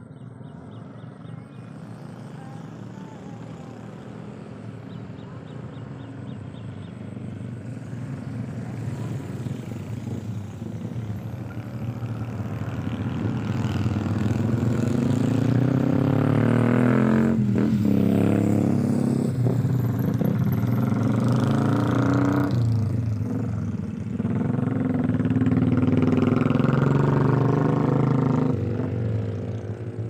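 A motor vehicle's engine running close by, growing steadily louder over about fifteen seconds and then staying loud, with a brief dip partway through the second half.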